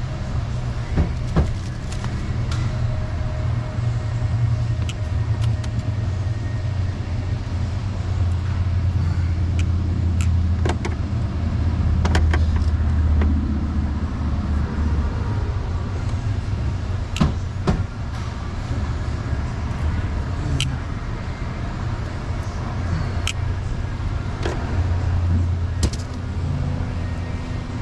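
A vehicle engine running at idle with a steady low rumble that swells a little at times, over scattered sharp clicks and knocks.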